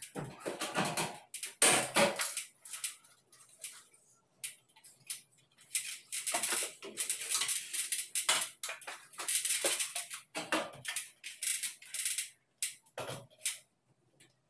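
Irregular metallic clicks, clinks and scrapes of hand tools and aluminium framing being handled, some louder than others, with short quiet gaps.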